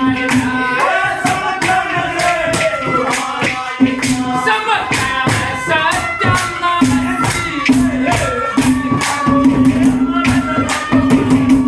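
Haryanvi ragni folk music: a melody over low held notes, with regular jingling percussion strokes.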